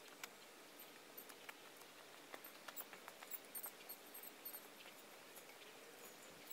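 Near silence: faint outdoor ambience with scattered short, high-pitched chirps and light ticks.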